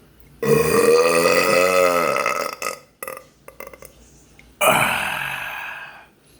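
A man letting out two long, loud burps from chugging lemonade: the first runs about two seconds with a wavering pitch, and the second starts about four and a half seconds in and fades away. A few small mouth clicks come between them.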